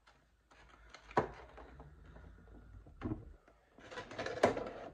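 Clear plastic packaging insert being worked out of a cardboard collectible-figure box: a couple of sharp plastic clicks, then nearly a second of crinkling plastic ending in a loud crack near the end.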